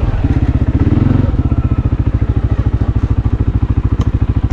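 A vehicle engine running steadily, with an even low pulsing throughout; it is a little fuller and louder during the first second or so before settling into an idle.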